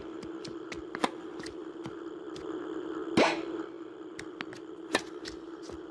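Tennis balls being hit with a racket, with sharp pops: one loud strike about three seconds in and smaller hits about a second in and near the end. A steady low hum runs underneath.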